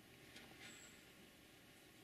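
Near silence: faint outdoor hiss with two soft, brief rustles about half a second in and a short, faint, high-pitched peep.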